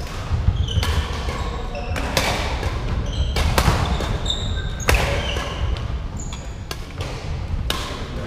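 Badminton rally: sharp cracks of rackets hitting the shuttlecock, one or two a second, ringing in a large hall, with short high squeaks of shoes on the wooden court floor. The loudest hit comes about five seconds in.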